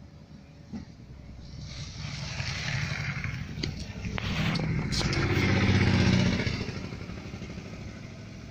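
Small auto-rickshaw engine passing close by, growing louder, loudest about two-thirds of the way through, then fading.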